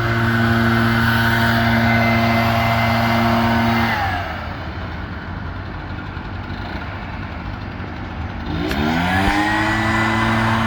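Leaf blower's small petrol engine running steadily at full throttle, dropping to idle about four seconds in, then revving quickly back up to full speed near the end.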